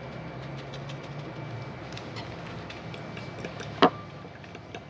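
Faint clicks of kitchen utensils on a bowl over a steady low hum, with one sharp clink a little before the end.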